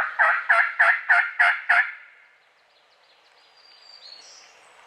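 A run of about seven evenly spaced wild turkey yelps, about three a second, that stops about two seconds in. Faint high bird chirps follow near the end.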